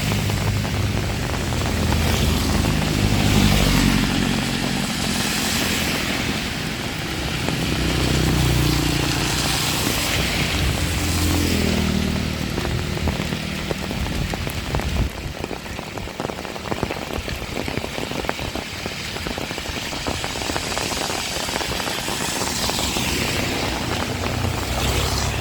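Heavy rain falling steadily, with motor vehicles passing. Their engine noise is strongest in the first half and fades a little past the middle, leaving mostly rain, before rising again near the end.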